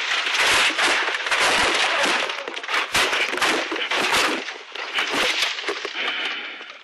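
Rally car crashing off the road into bushes and trees, heard from inside the cabin: a dense, rapid run of loud impacts and crashing as the car ploughs through vegetation and the windscreen is smashed, dying away near the end.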